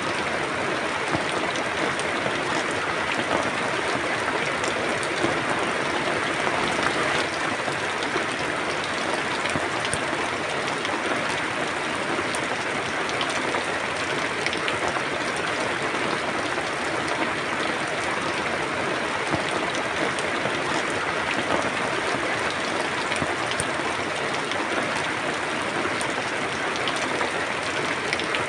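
Steady rain falling, with many small drop ticks on a surface over an even hiss.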